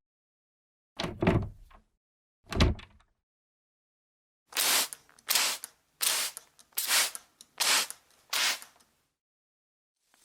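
A household sound effect: two short knocks, then six even scraping or brushing strokes, each under half a second.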